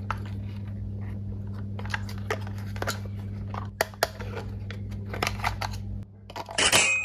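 Toy packaging being unboxed by hand: scattered small plastic clicks and crackles, then a louder rasping crinkle near the end, over a steady low hum.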